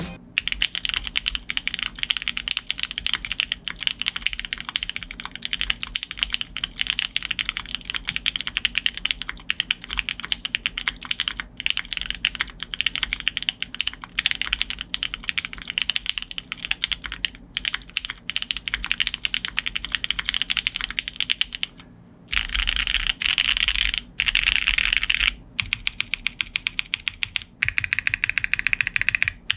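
Typing test on an LW75 75% gasket-mounted mechanical keyboard with Gateron Oil King linear switches on an aluminum plate and GMK keycaps: a steady run of fast keystrokes. It pauses briefly about two-thirds of the way through, then goes on in louder, denser bursts.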